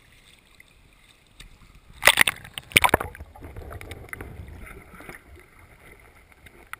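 Water splashing as a GoPro camera in its housing is plunged into shallow sea water: two loud splashes about two seconds in and just before three seconds, then a muffled underwater rumble that fades.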